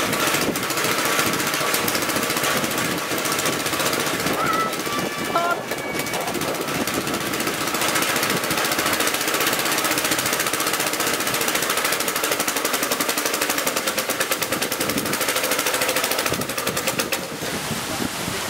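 The single-cylinder, air-cooled engine of a 1920 Briggs & Stratton Flyer's rear motor wheel running with a rapid, even popping exhaust. It has just got going, and the buckboard starts rolling near the end.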